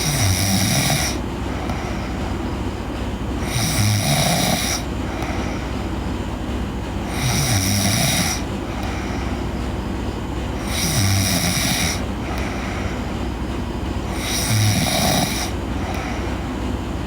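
A sleeping girl snoring in a steady rhythm, five snores about three and a half seconds apart, each lasting about a second, over a constant low hum.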